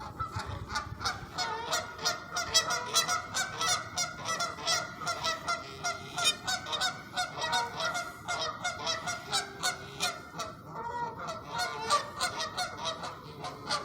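Geese honking over and over, many short calls in quick succession as they drive off a pair of ducks.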